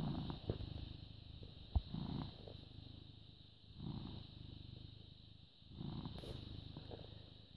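British Shorthair cat purring close up, the rumble swelling and fading with each breath about every two seconds. A single sharp click a little under two seconds in.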